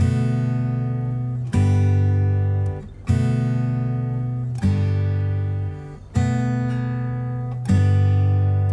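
Background music: acoustic guitar chords strummed about every second and a half, each left to ring and fade.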